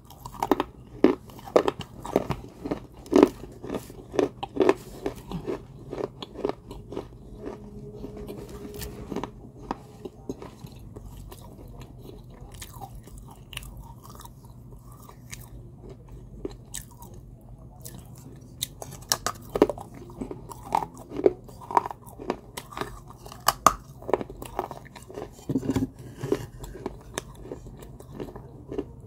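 Biting and chewing pieces of an unglazed terracotta clay cup: sharp crunches and crackles in quick runs. The crunching thins out for several seconds in the middle, then picks up again.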